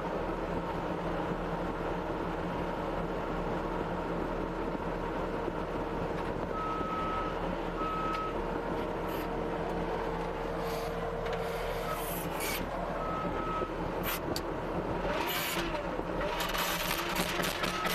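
Case TR270B skid steer's diesel engine running under work, with its reversing alarm beeping in short pulses a few times partway through and again at the end, and bursts of hiss in the second half.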